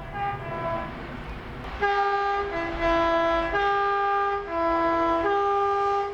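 Two-tone train horn sounding, switching back and forth between a high and a low note about once a second, loud from about two seconds in; fainter horn notes come before it.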